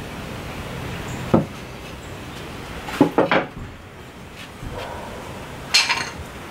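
Wooden pieces knocking against each other and the workbench: one knock about a second and a half in, a quick run of three or four around three seconds, and another near the end.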